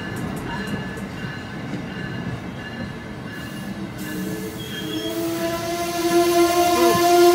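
Amtrak Amfleet passenger coaches rolling past on the rails with a steady wheel rumble. About five seconds in, a steady high-pitched wheel squeal sets in and grows louder.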